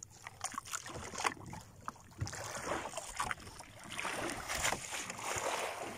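Sea water splashing and lapping against the side of a small boat, with wind buffeting the microphone. It begins with scattered small splashes, and a rushing sound swells in the second half.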